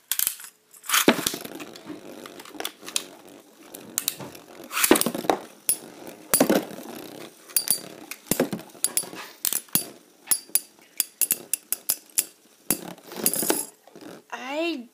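Two metal-wheeled Beyblade spinning tops launched into a plastic stadium, scraping and whirring across the floor and clashing, with many sharp metallic clacks throughout.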